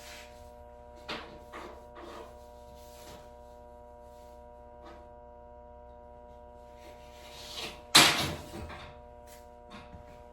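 Workshop handling sounds: scattered light clicks and rustles, with one louder sharp clatter about eight seconds in, over a steady electrical hum.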